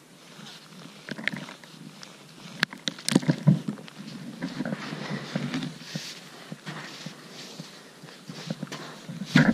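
Close, irregular crunching and scuffing of snow with fabric rustling as a person kneels and pushes a gloved hand into the snow while handling a fabric sack. The loudest crunches come about three seconds in and again just before the end.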